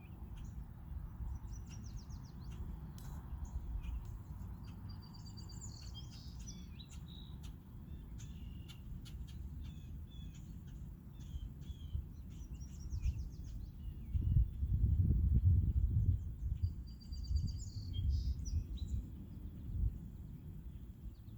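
Small birds chirping and trilling in repeated short phrases, over a low rumble that swells a little past the middle.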